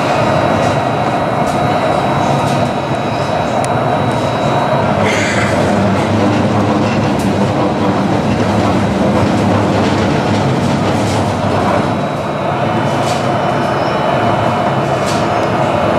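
A tram heard from on board while it runs along the line: a steady, loud rumble of steel wheels on rail with a faint high whine. Scattered clicks come through, and there is a brief hiss about five seconds in.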